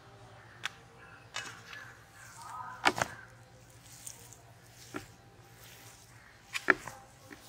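Hands kneading a soft minced-chicken mixture with cheese slices on a steel plate: quiet squishing with a handful of sharp taps and clicks, the loudest about three seconds in and again near the end.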